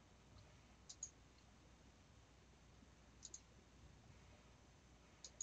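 Faint computer mouse button clicks: three quick pairs about two seconds apart, over near silence.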